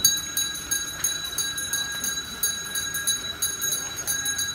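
Small metal bells shaken rapidly and continuously, a bright jangling ring struck several times a second.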